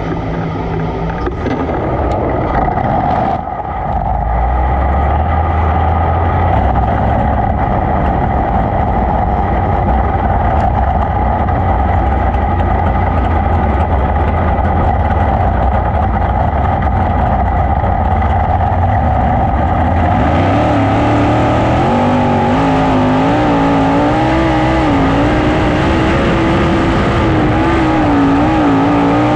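A 410 sprint car's V8 running low and steady as the car rolls out. About 20 seconds in it comes up to speed on the dirt track, the engine pitch rising and falling through the turns with a rush of wind on the microphone.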